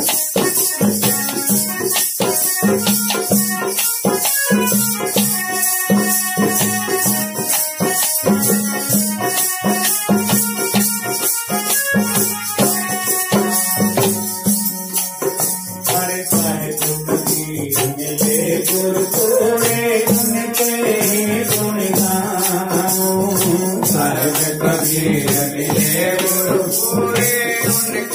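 Devotional bhajan music: a keyboard instrument plays the tune in held notes while hand rattles shake a steady beat. From about halfway through, a man's voice takes up the singing over the rattles.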